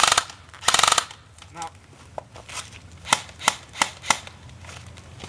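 Airsoft electric rifles firing two short full-auto bursts of rapid clicks in the first second. Several single sharp clicks follow, about a third of a second apart.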